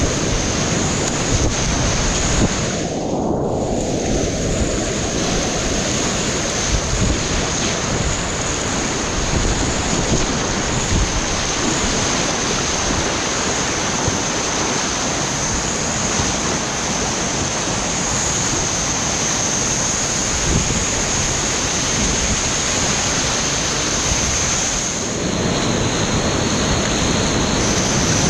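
Whitewater rapids rushing in a loud, steady roar around a kayak, with a thin steady high tone over it. The sound is briefly muffled about three seconds in.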